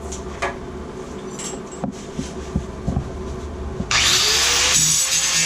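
A few light knocks and handling clicks, then about four seconds in a power cutting tool starts abruptly. It cuts into the tiled wall and its cement backer board, and its motor whine rises as it spins up, then holds steady.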